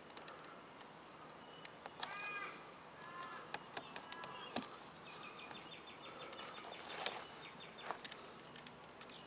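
Faint clicks and scrapes of a Stanley utility knife cutting through the plastic coating of a horse-fence rail, with a few short bird calls in the background about two to three seconds in.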